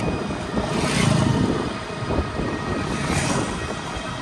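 Open-sided passenger tricycle moving along a road, a steady rumble of road and wind noise. Two louder swells of rushing noise come about a second in and again just after three seconds.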